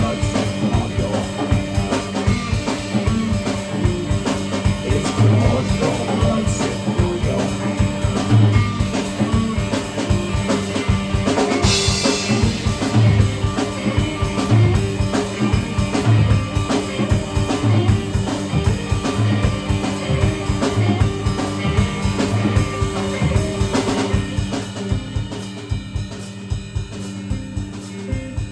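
Live band instrumental passage: a drum kit keeps a steady beat of bass drum and snare hits under a held, droning note. A cymbal-like crash comes about twelve seconds in, and the drumming thins out near the end.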